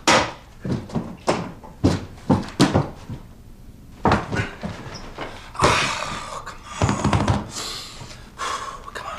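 A quick, irregular run of knocks and thumps in a small room, roughly three a second for the first few seconds, followed by softer, longer noisy sounds.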